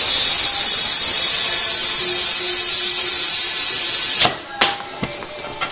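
Compressed air from a homemade compressor hissing loudly at the air chuck on a tyre valve, steady, then cutting off suddenly about four seconds in. A few sharp clicks follow as the chuck is handled.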